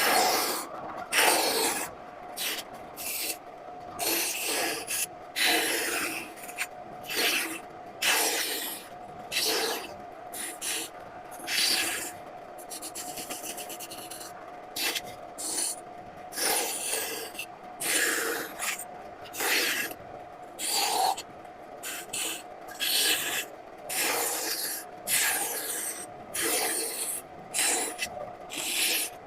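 A hand tool rasping across wood in repeated strokes, roughly one a second, with a quicker run of short strokes near the middle. A faint steady hum runs underneath.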